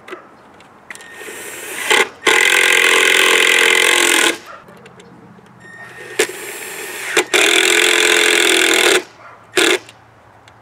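Cordless drill driving screws through a car amplifier's mounting holes into a wooden shelf, twice. Each time the motor picks up slowly, then runs at full speed for about two seconds and stops sharply. A short final burst near the end seats the last screw.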